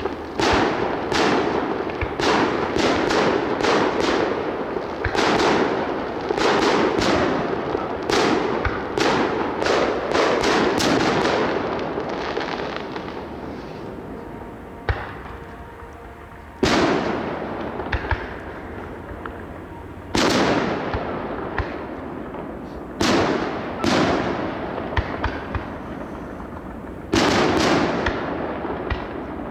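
Aerial fireworks display. A rapid barrage of shell bursts runs for about the first twelve seconds, then gives way to separate loud bangs every few seconds, each followed by a rolling echo.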